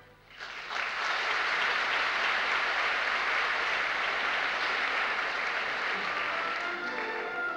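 Theatre audience applauding, starting about half a second in after the music stops; the orchestra comes back in under the applause near the end.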